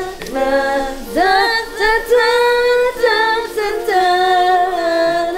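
Music with a woman singing slow, long held notes, with more than one pitch sounding at once.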